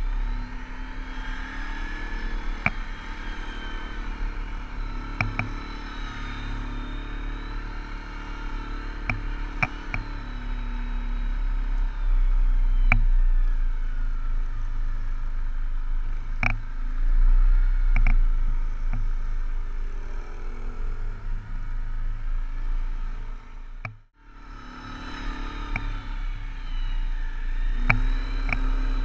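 Arctic Cat 550 ATV on Tiger Tracks snow tracks running across snow, its engine note rising and falling with the throttle. Scattered sharp clacks come through along the way, and the sound drops out almost completely for a moment about three-quarters of the way through.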